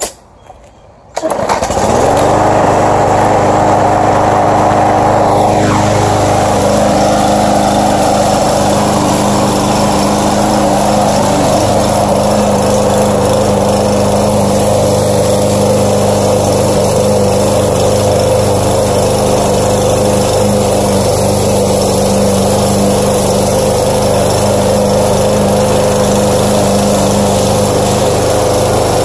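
Walk-behind petrol push lawn mower's small engine starting about a second in, rising briefly in pitch, then running steadily as it cuts grass.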